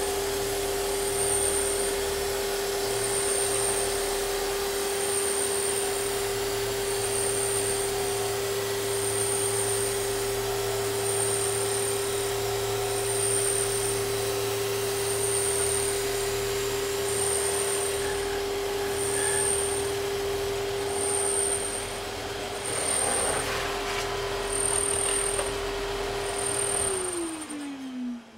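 A sander thicknesser's sanding drum and a vacuum dust extractor run together while an ash bow laminate on a sledge is fed slowly through to sand its taper. This gives a loud, steady whirring hum, with a faint high tone pulsing about once a second. Near the end one motor is switched off and winds down, its hum falling in pitch.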